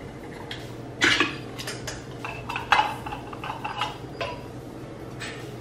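Tin cans, a metal utensil and a cooking pot being handled at the stove: a series of sharp metallic clinks and scrapes, some with a short ring, over a low steady hum.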